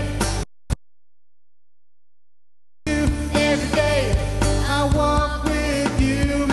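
Live worship band playing rock-style music, cut off suddenly about half a second in by a dropout in the recording: about two seconds of complete silence, broken by one short blip, before the music comes back.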